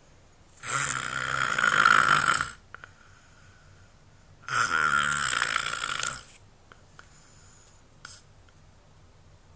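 A sleeping person snoring loudly: two long snores, each about two seconds, about four seconds apart.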